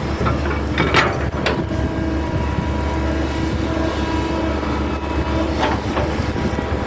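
Hitachi hydraulic excavator running under load, its diesel engine humming steadily with a whine from the hydraulics, and a few sharp metallic knocks from the working gear about a second in and near the end.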